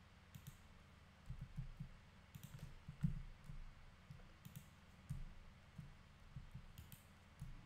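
Faint, irregular clicking and low knocks from a computer mouse and keyboard being worked at a desk, with a few sharper clicks scattered through.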